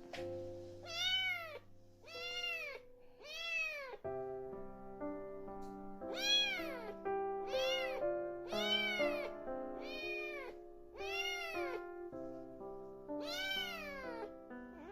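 A kitten meowing over and over, about nine high calls roughly a second apart, each rising then falling in pitch, over soft background music.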